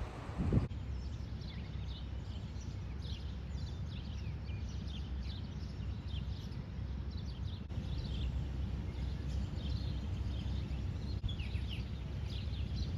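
Many small birds chirping over a steady low rushing noise.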